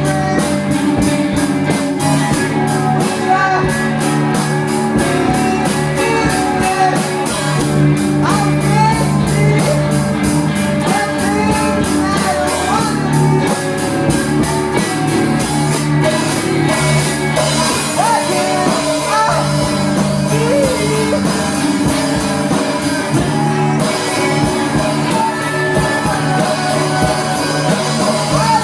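Live rock band playing a song with sung vocals over a steady drum beat.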